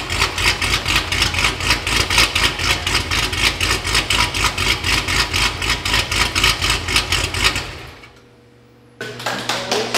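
Cadillac CT5-V Blackwing's 416 cubic-inch LME iron-block V8 idling through its quad exhaust with an even, choppy pulse. It dies away about eight seconds in.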